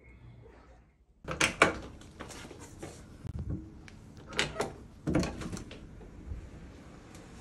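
Front door being unlocked and opened: sharp clicks of the thumb-turn lock, then the lever handle pressed and the latch clunking about five seconds in, with a few knocks and handling sounds before.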